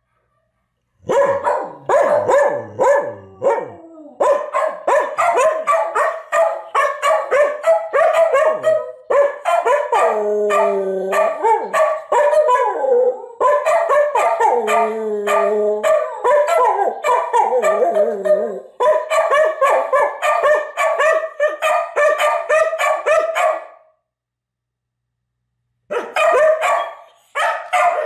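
Two American Eskimo dogs howling together, a dense run of wavering yip-howls, with two short dead gaps.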